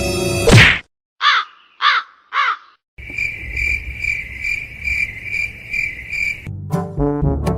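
Music cut off by a sudden loud hit, then three short animal calls that each fall in pitch, then a steady chirping at about two chirps a second. Brass music starts near the end.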